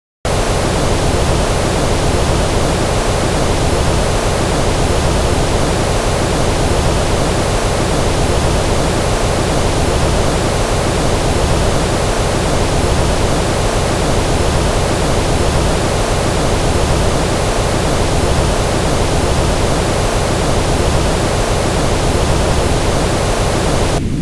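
Steady, loud noise spread evenly from deep rumble to high hiss, like generated pink noise. It switches on abruptly out of silence just after the start and changes abruptly near the end.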